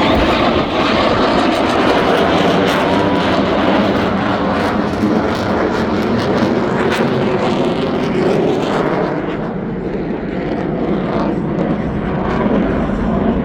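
Blue Angels F/A-18 Super Hornet jets flying overhead, their engines making a loud, steady rush of jet noise. About nine seconds in, the high end fades as the jets move away.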